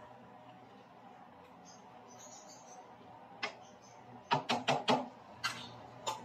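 Faint stirring of bamboo shoots and shrimp in a nonstick pan with a spatula, then a quick run of about five sharp taps of the spatula on the pan about four seconds in, and two more near the end.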